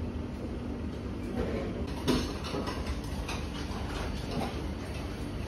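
Steady low rumble of indoor background noise with a few light clinks and knocks, the sharpest about two seconds in.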